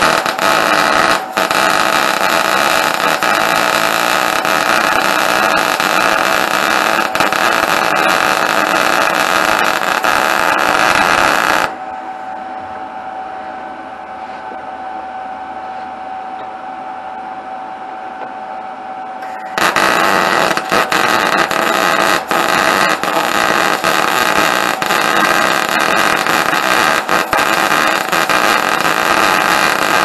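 Wire-feed (MIG) welding arc crackling and sizzling steadily while a cap is welded onto the end of a square steel tube. The arc stops suddenly about twelve seconds in, leaving a quieter steady hum, and starts again crackling about eight seconds later.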